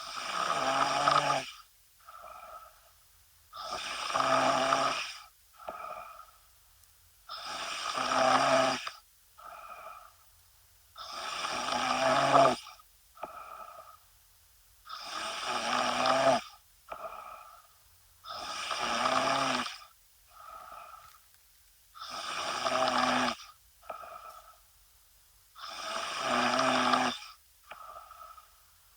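A woman snoring in her sleep: a loud snore about every three and a half seconds, each followed by a short, softer one.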